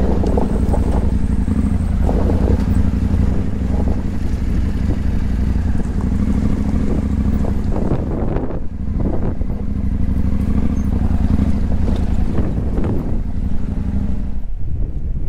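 Adventure motorcycle engine running under way, its note shifting slightly with the throttle and easing off briefly about halfway through.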